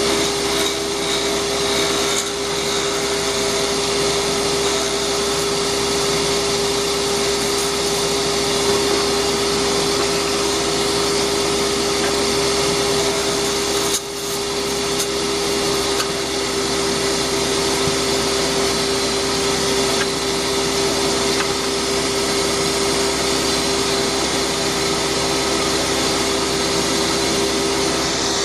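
Workshop machinery running steadily: a constant motor hum under a steady rushing noise, dipping briefly about halfway through.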